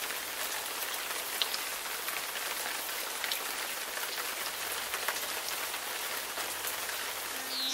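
Steady, even hiss of rain with scattered small ticks of drops, holding at one level throughout.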